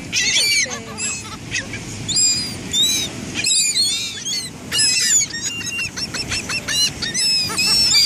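A flock of laughing gulls calling constantly, many short, arched calls overlapping one another, as the birds crowd in begging for food being hand-fed to them. A low steady rush lies beneath.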